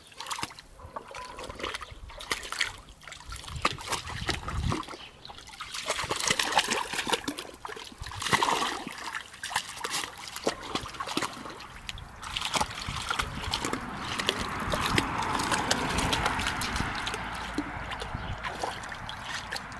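A rough collie puppy splashing and pawing at the water in a shallow plastic paddling pool, with irregular splashes and sloshing.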